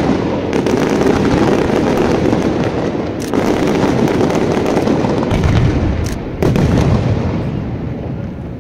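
Daytime fireworks barrage: shells bursting one on top of another in a dense, continuous crackle of bangs, with a sharper rise about six and a half seconds in, then thinning out near the end.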